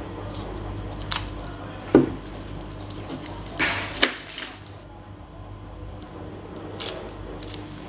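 Kitchen knife cutting a red onion, with a few scattered taps and knocks of the blade and onion pieces on a plastic cutting board. The sharpest come about two and four seconds in.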